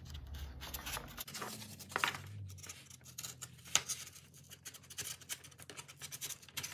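Hobby knife blade scratching and crackling through a molded paper-pulp egg tray as it is cut along a seam, in short irregular strokes with one sharper click nearly four seconds in.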